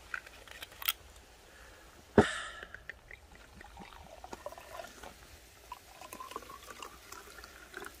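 The screw cap of a green glass soju bottle is twisted off with a sharp crack about two seconds in. Soju then trickles from the bottle into a small glass, followed by beer poured from a brown bottle into the same glass.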